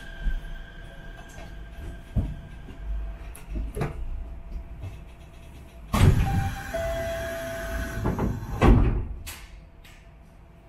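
Monorail car's sliding passenger doors working at a station stop: a loud rush starts about six seconds in, a steady beep sounds for about a second, and a heavy thump comes under three seconds later, after a few lighter knocks earlier on.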